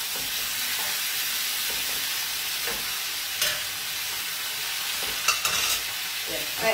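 Spaghetti in oil and a splash of salted water, and garlic and onion, sizzling steadily in aluminium frying pans on a gas hob. A utensil clacks against the pan about halfway and again several times a little over five seconds in, as the pasta is stirred.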